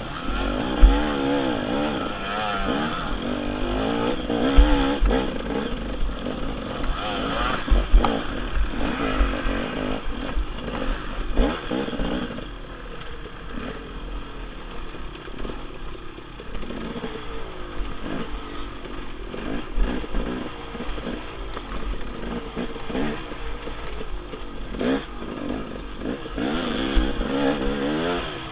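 Dirt bike engine revving up and down constantly as it is ridden over rough, rutted single-track, with scattered thumps and clatter from the bike hitting bumps. It runs quieter for a few seconds from about twelve seconds in.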